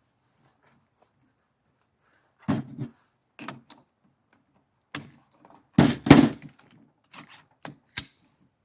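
A string of rifle shots from an AR-10 in .308 fitted with a Sharps Bros Badlands muzzle brake and blast shield, fired at an uneven pace. The sharpest reports fall around the middle, two in quick succession.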